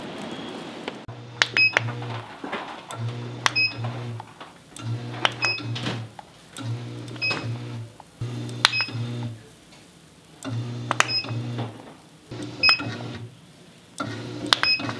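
Automatic batter dispenser on a chalbori-ppang (barley pancake) griddle machine, cycling about eight times: each cycle is a sharp click followed by a low motor hum of about a second as the nozzle deposits one round of batter.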